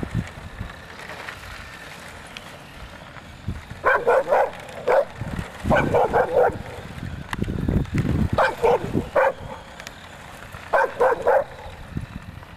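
Dog barking in quick runs of three or four barks, a run every two to three seconds.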